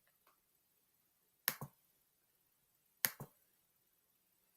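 Two short, sharp clicks about a second and a half apart, each a quick double tick, from keying figures into a calculator. Near silence between them.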